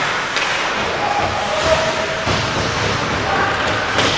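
Ice hockey game sounds in a rink: a steady wash of skating and arena noise with faint distant shouting, and two sharp knocks, one just after the start and one near the end.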